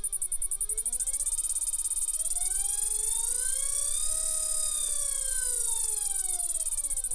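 Laguna 15/24 lathe motor running with its pulley disconnected, giving a wavering squeak whose pitch slides down, climbs, arches and falls again, over a steady high whine. With the belt off, the squeak is coming from the motor itself.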